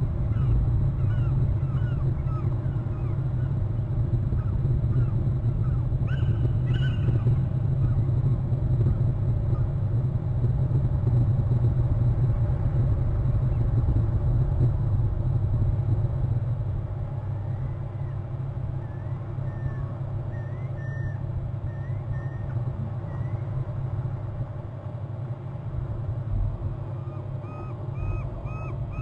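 Outdoor webcam-microphone ambience: a steady low rumble that eases somewhat past the middle, with faint short bird chirps in quick series at the start and again in the second half.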